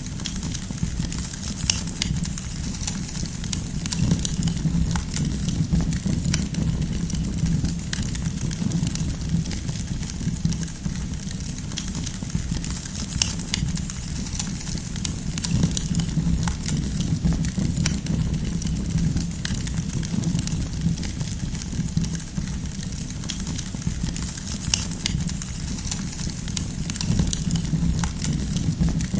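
Wood fire crackling: scattered sharp pops and snaps over a steady low rumble of burning.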